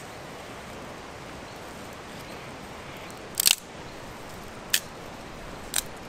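Small campfire of eucalyptus leaves and twigs burning with a steady hiss and three sharp cracks past the middle: a loud double crack, then two single ones about a second apart.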